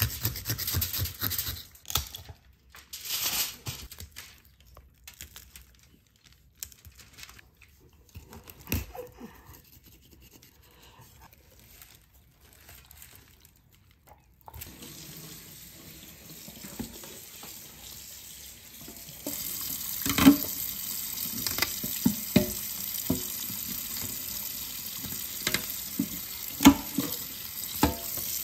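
Scraping and rubbing as a striped bass is scaled and handled, then, about two-thirds of the way in, a kitchen tap running steadily into a stainless steel sink, with occasional sharp knocks against the sink as the fish is cleaned.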